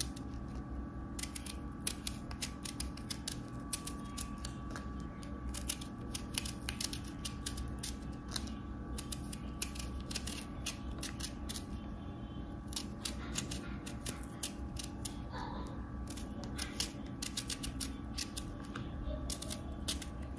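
Serrated kitchen knife scraping and cutting the spiny peel off a maxixe (West Indian gherkin): a rapid, irregular run of small crisp clicks and scrapes.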